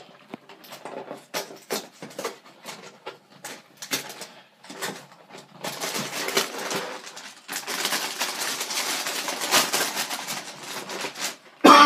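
A cardboard cereal box being torn open by hand, with scattered rips and clicks, then a stretch of dense crinkling and rustling from the plastic inner bag from about seven and a half seconds in. A loud cough starts right at the end.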